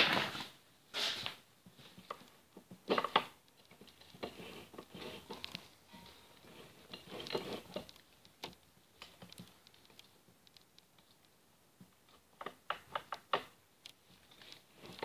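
Scattered light clicks and knocks, with a quick run of sharp clicks near the end, as the selector of an opened NP208 chain-driven transfer case is worked by hand to shift it into four low.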